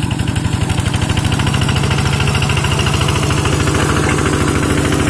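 Kubota RD single-cylinder diesel engine of a Quick G1000 hand tractor running steadily with a fast, even thudding beat, getting a little louder about a second in, as it pulls a harrow.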